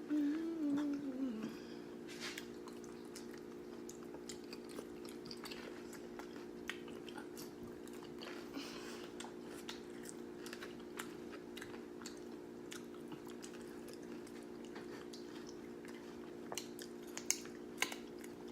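Close-up chewing and crunching of Nacho Cheese Doritos nachos topped with cheese sauce: many small, irregular crunches. A steady low hum runs underneath.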